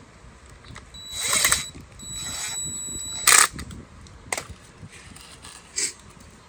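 Power drill running in two short spurts with a steady whine, driving fasteners back in during reassembly. A sharp click follows just after the second run, then a couple of lighter clicks.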